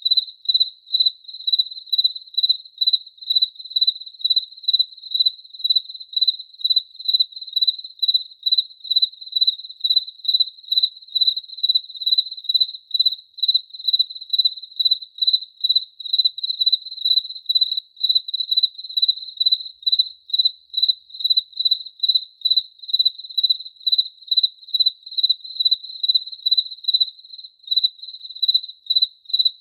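A cricket chirping steadily, a high chirp repeated evenly about two to three times a second.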